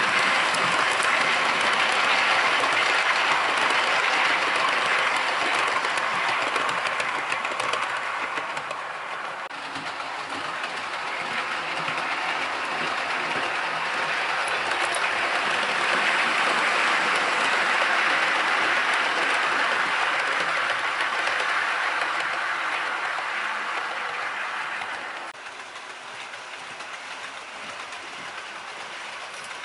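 Model train of an Accurascale Class 37 locomotive and Mark 1 coaches running along the track: a steady rolling rumble of wheels on rail and motor. It swells as the train runs close, eases off about nine seconds in, builds again, and drops sharply near the end as it draws away.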